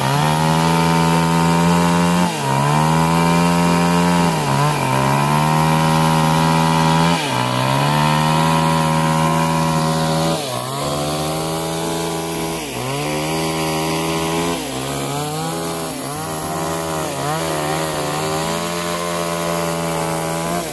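Two-stroke petrol chainsaw running at high revs while cutting through a log. Its engine note sags and recovers repeatedly as the chain bites into the wood, more often in the second half.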